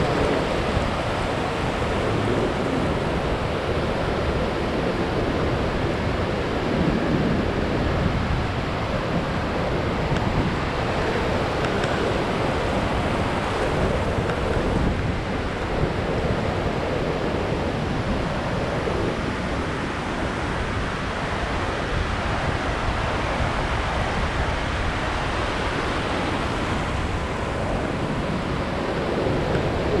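Pacific Ocean surf breaking offshore and washing up over a flat sandy beach: a steady, unbroken wash of noise.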